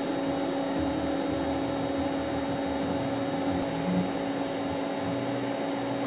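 An endovenous laser unit sounding its steady high beep while the laser fires during the fibre pull-back, over a steady low machine hum.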